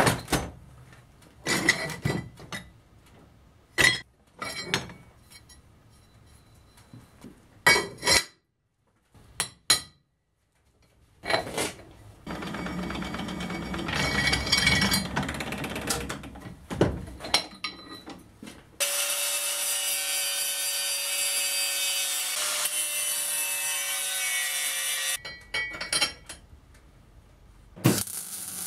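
Metalworking on scrap steel: scattered knocks and clanks of steel parts being handled, then a drill press boring through steel tube for several seconds, then a steady machine whine lasting about six seconds.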